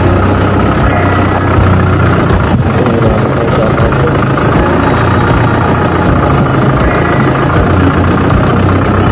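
A vehicle engine running steadily, a loud unbroken drone with a constant low hum.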